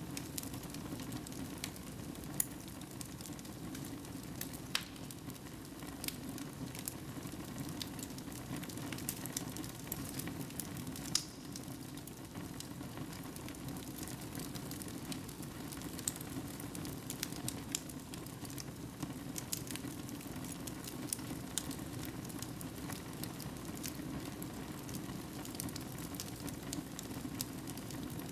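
Wood fire burning in a fireplace: a steady low rush of flames with frequent irregular crackles and pops from the logs.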